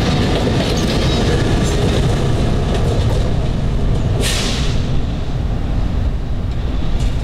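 NJ Transit multilevel commuter train passing at speed, its wheels rumbling steadily on the rails, with the locomotive at the rear going by. A brief hiss about four seconds in.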